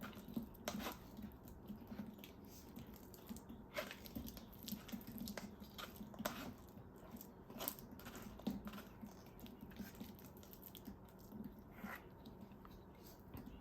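Soft kitchen handling noises: irregular light clicks and small squishing sounds, as of dough or food being worked by hand.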